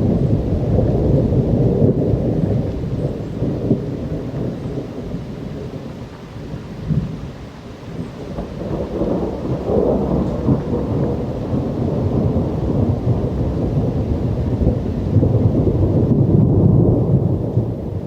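Thunder rumbling in long, rolling peals over steady rain. The rumble eases off about seven seconds in, then builds again and is loudest near the end.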